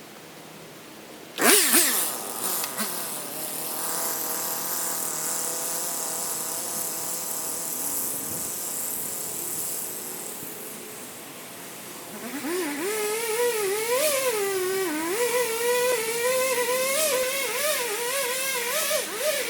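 Chainsaw starting up suddenly about a second and a half in and running steadily, then from about twelve seconds in revving up with its pitch rising and wavering as it cuts into a large yellow pine trunk during felling.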